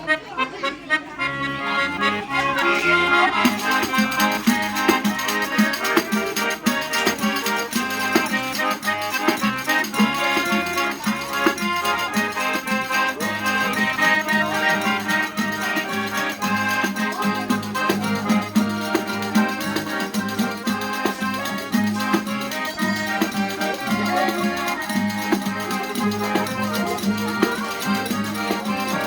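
Gaita (accordion) playing a vaneirão, the gaúcho dance tune, with a steady pulsing rhythm and many quick notes over a steady bass.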